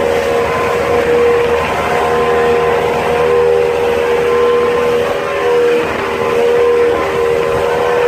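Speedboat engine running steadily at speed, a held whine with slight shifts in pitch over a constant wash of water noise.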